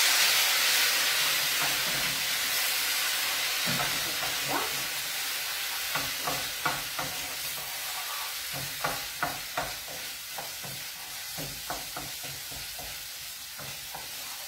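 White wine poured into a hot pan of toasted rice hisses and sizzles at once, loudest at first and slowly fading as the wine boils off (deglazing the risotto). A wooden spoon stirs the rice and knocks and scrapes against the pan.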